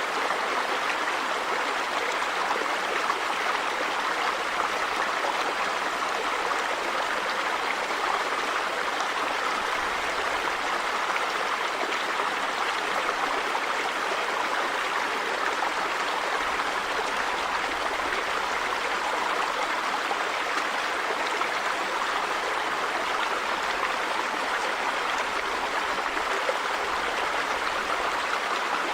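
River water flowing and rushing over stones, a steady even rush without breaks.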